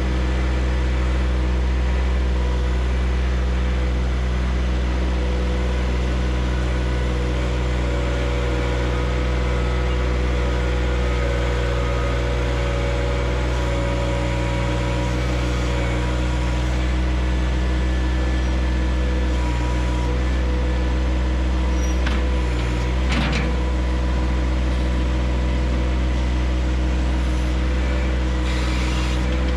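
John Deere 1025R compact tractor's three-cylinder diesel running steadily while it works a backhoe, with one short knock late on.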